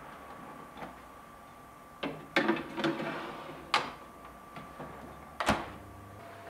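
Metal tart tin clattering and scraping on the oven tray as it is slid into a Panasonic countertop oven, a few sharp clanks in quick succession. Then the oven door shuts with a single thump about five and a half seconds in, over the oven's faint steady hum.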